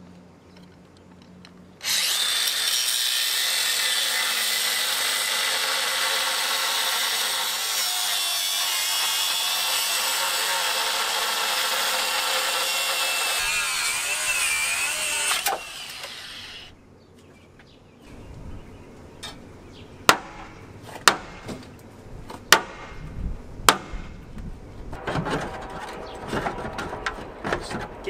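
Grinder cutting through the steel front frame cross member of a car, a loud steady high-pitched screech lasting about fourteen seconds that dips in pitch near the end and then stops. A few seconds later come scattered sharp knocks.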